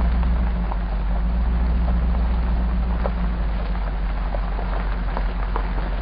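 Hummer H2's V8 engine and drivetrain running steadily while driving on a dirt road, heard on board: a low drone with many small scattered ticks and rattles from the gravel and the body.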